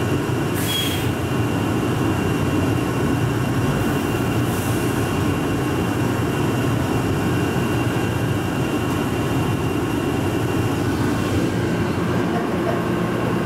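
Rubber-tyred automated people mover heard from inside the car as it runs through a tunnel: a steady rumble with a thin, steady high whine and two short hisses, as it nears a station.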